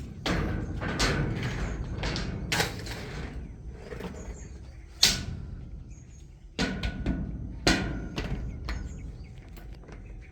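Irregular knocks and clatters of shed floor slats being handled and set in place, about a dozen over ten seconds, the loudest about five seconds in.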